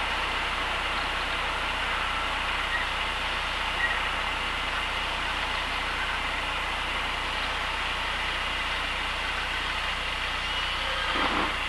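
Cessna 172 engine at low power with steady cabin noise as the plane floats in the landing flare. About a second before the end a short rumble breaks in, fitting the wheels meeting the grass runway.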